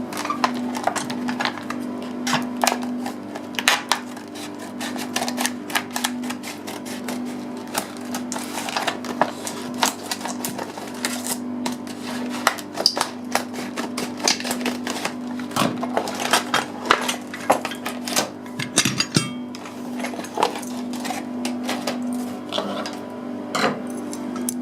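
Metal clicking and clinking of a 73 mm round puck padlock and its hasp being handled and opened up: many small sharp clicks in quick, irregular succession, over a steady low hum.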